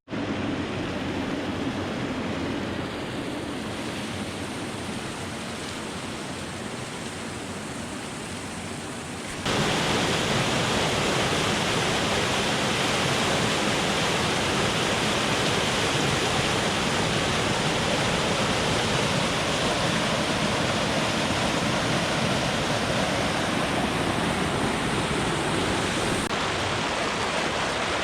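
Waterfall cascade rushing steadily; about nine seconds in the rush turns abruptly louder and brighter.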